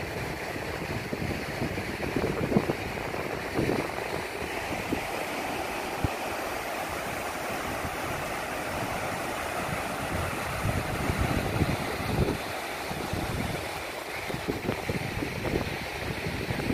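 Steady wash of surf breaking on a sandy shore, with wind gusting on the microphone in irregular low buffets.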